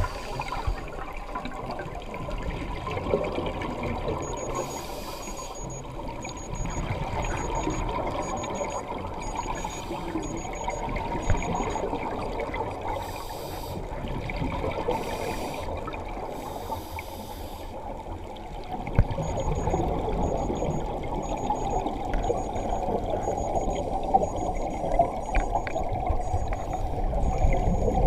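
Scuba regulator breathing heard underwater: a muffled rush of exhaled bubbles with swelling bursts as the divers breathe out. A faint high electronic beeping repeats about twice a second through much of it.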